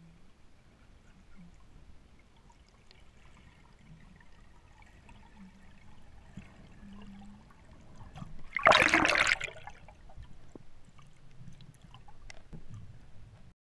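Underwater sound picked up by a camera beside a freediver: faint water noise, with a loud rush of bubbling, gurgling water about nine seconds in that lasts about a second.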